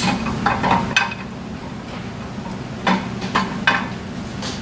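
Steel engine parts of an AMC 360 V8, out of the block during teardown, clinking and knocking against each other and the bench, about seven sharp strikes at uneven intervals, over a steady low hum.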